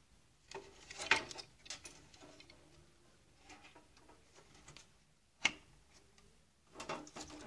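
Light clicks and taps of hard plastic parts of a coffee machine's grinder unit being handled and pressed into place, irregular and scattered, with one sharper click about five and a half seconds in.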